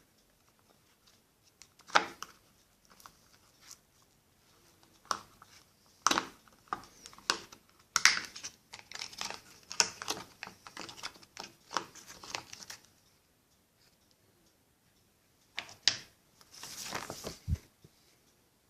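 Packaging being unwrapped by hand: wrapping crinkling and tearing in irregular bursts, with scattered clicks and knocks and a dull thump near the end.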